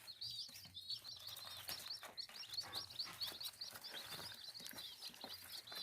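A flock of Kadaknath chicks peeping continuously: many short, high chirps overlapping, several a second, with a few faint clicks.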